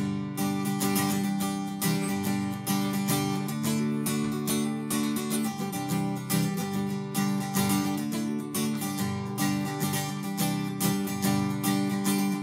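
Acoustic guitar strummed in a steady rhythm, an instrumental outro tune with no singing.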